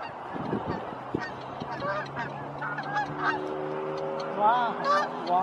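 A flock of Canada geese honking in flight, many short overlapping calls that come thicker and louder near the end.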